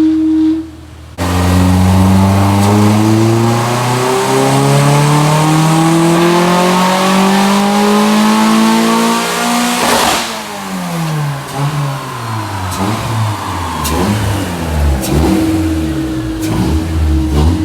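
Honda H22A4 four-cylinder in a 5th-gen Prelude making a full-throttle dyno pull through a straight-piped exhaust with a DC Sports muffler. The engine note climbs steadily for about nine seconds, breaks off sharply at the top, then winds back down to idle, with a few sharp cracks from the exhaust near the end.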